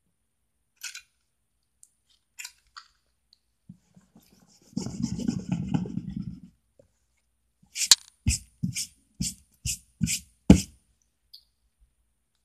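Hands working Play-Doh on a small plastic tabletop: a few light clicks, then a rubbing sound lasting under two seconds, then seven sharp taps over about three seconds.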